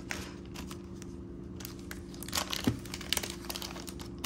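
Rustling and light clicks of jewelry pieces being handled and unpacked, busiest a couple of seconds in, over a steady low hum.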